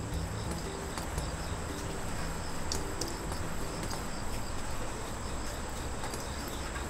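Insects chirping steadily in a high, continuous trill with faster pulsing beneath it, over a low steady rumble.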